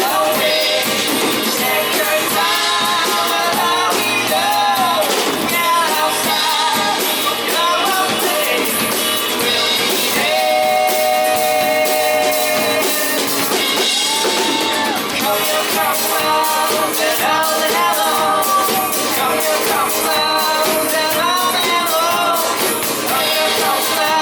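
Live rock band playing an unplugged acoustic set: guitar and drums with a sung vocal line that slides and holds long notes.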